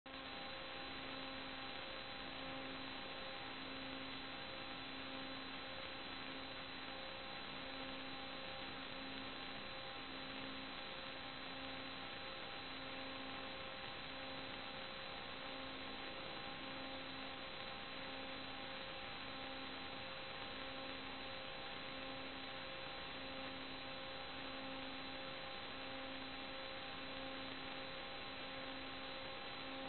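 Steady electrical hum over an even hiss, with no other sound. The lowest hum tone pulses slowly and evenly.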